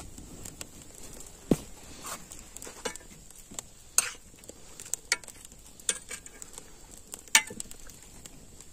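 Cooking over a wood fire: irregular sharp crackles and light clicks, roughly one a second.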